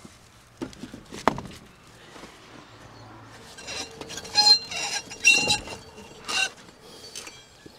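Rubber track being worked by hand onto an O&K RH 1.17 mini excavator's steel undercarriage. A knock about a second in is followed by a run of ringing metal clanks in the second half.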